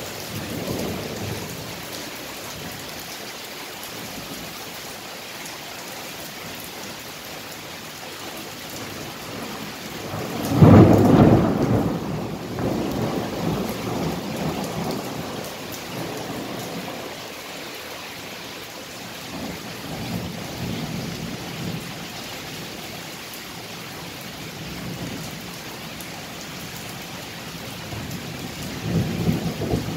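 Steady rain falling through a thunderstorm. About ten seconds in, a sudden loud thunderclap rolls on as rumbling for several seconds, with fainter rumbles later and another louder one near the end.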